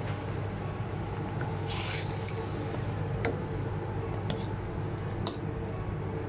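Metal ladle stirring and scraping chicken drumsticks through wet curry paste in an aluminium wok, with a few light clinks of the ladle against the pan in the second half, over a steady low hum.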